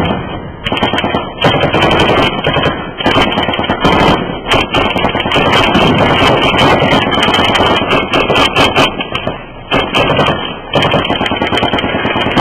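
Heavy gunfire in an ambush: dense, overlapping shots with hardly a pause, loud enough to overload the recording, with a rifle firing close to the microphone among them. The shooting eases briefly a little before the end, then picks up again.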